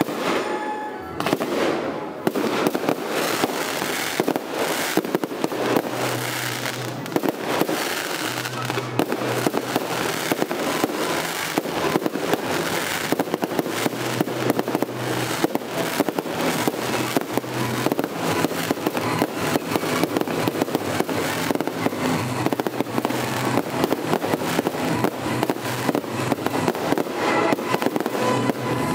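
Fireworks finale: a rapid, unbroken barrage of bangs and crackles from many shells and rockets bursting at once.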